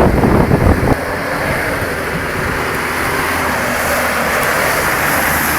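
Wind buffeting the microphone for about a second, then a sudden change to the steady running noise of an off-road 4x4, an even engine drone with hiss over it.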